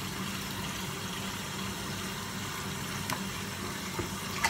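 Steady background hum with an even hiss, the kind of running noise a kitchen appliance such as an extractor fan makes, with a light click about three seconds in and a sharper one near the end.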